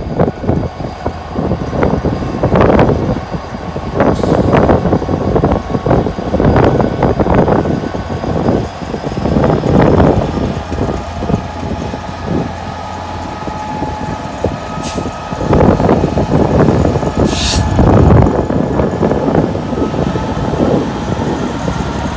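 A Class 66 diesel-electric locomotive's two-stroke EMD V12 engine running as it moves slowly past, with gusts of wind buffeting the microphone. Late on come two short high hisses.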